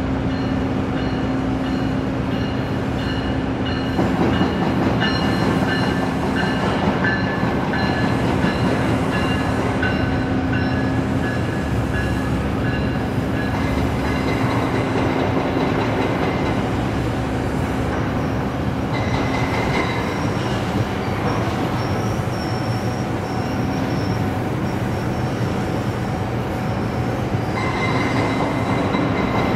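GO Transit push-pull commuter train passing, pushed by its MP40PH locomotive, with steady wheel-on-rail noise. High thin squealing tones from the wheels come and go.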